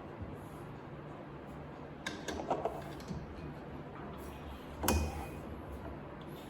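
Short metal clinks and knocks from adjusting work in a lathe's four-jaw independent chuck: a few light taps about two seconds in and one louder knock about five seconds in, over a faint steady hum.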